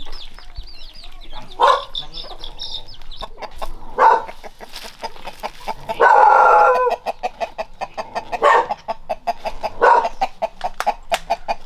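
Chickens: chicks peeping high and fast during the first few seconds, hens clucking in short repeated calls, and one louder, longer call about six seconds in.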